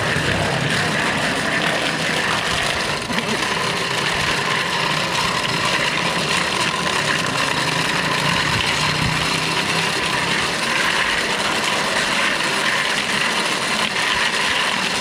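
Bicycle being ridden along a road: a steady rushing noise of air and tyres.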